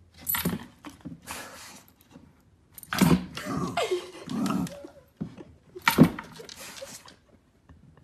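A dog nosing and pawing at a wooden treat-puzzle board with cup-lined holes: three sharp knocks on the wood, the loudest about six seconds in, with rubbing and rustling in between.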